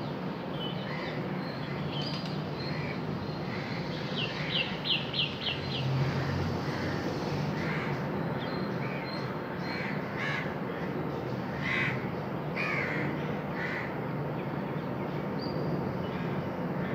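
Crows cawing now and then over steady outdoor background noise, with a quick run of about six high chirps from another bird around four to six seconds in.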